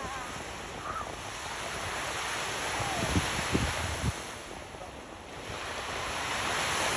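Surf washing ashore as a steady rushing sound that eases and swells again, with three short knocks about halfway through.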